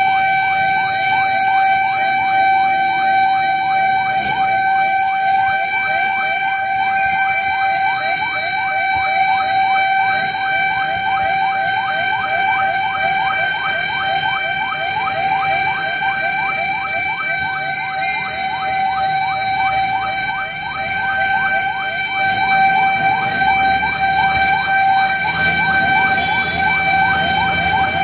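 Fire truck siren sounding continuously in a fast yelp: quick rising sweeps, about three a second, over a steady high tone, as the truck responds to a fire call.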